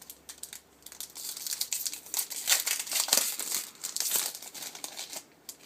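Foil booster pack wrapper crinkling as it is handled and torn open, a dense run of crackles that starts about a second in, is loudest in the middle and stops shortly before the end.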